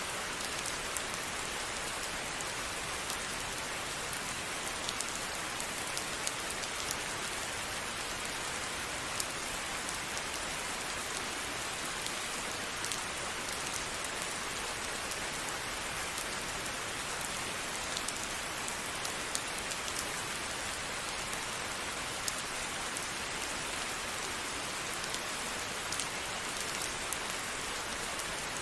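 Steady rain falling, an even hiss with many small, sharp drop ticks scattered through it.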